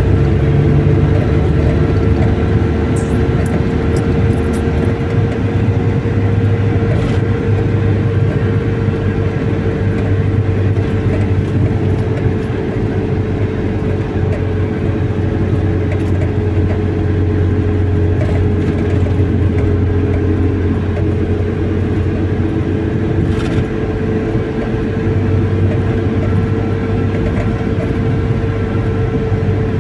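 Car driving along steadily: continuous engine and road noise with a constant low hum and a steady tone above it.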